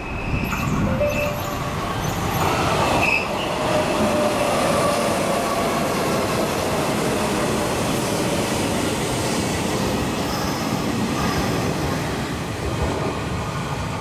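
A Hanshin 8000-series electric train passes through a station at speed without stopping. Its wheels rumble and clatter on the rails, building up about two to three seconds in and easing off near the end.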